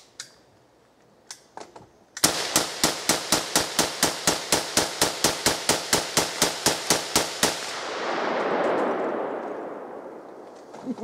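A semi-automatic rifle fired in a fast string of about thirty shots, roughly five or six a second, starting about two seconds in and stopping about five seconds later. A broad rushing noise swells after the last shot and fades away.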